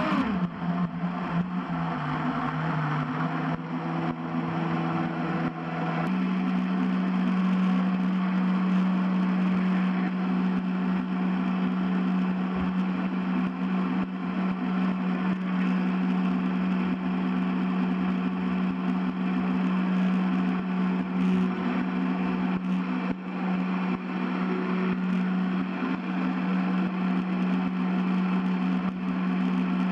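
Small boat's electric motor running under way, a steady whine over a rushing hiss. Its pitch drops sharply at the start as the throttle comes back, sits lower for a few seconds, then steps up about six seconds in and holds steady.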